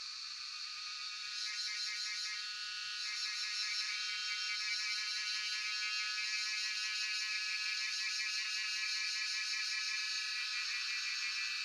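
Cicadas singing in a steady, high-pitched chorus that swells about a second and a half in and then holds; one layer of the song drops out near the end.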